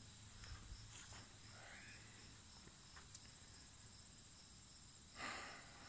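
Near silence with crickets chirping faintly and evenly, a couple of times a second, and a short soft rush of noise near the end.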